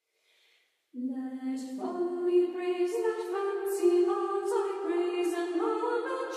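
Choir singing, starting about a second in.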